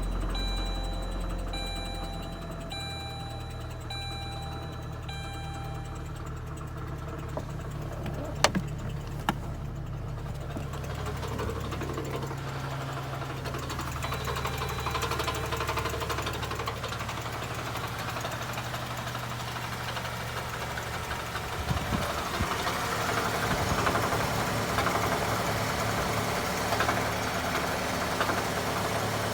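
2007 Saturn Ion engine running with a horrible knocking noise: the sign of a fault in the engine. A high beep repeats evenly for the first six seconds, two sharp clicks come at about eight and nine seconds, and from about 22 seconds in the engine grows louder and rougher.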